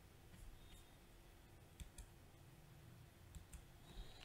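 Near silence with a few faint, short computer mouse clicks.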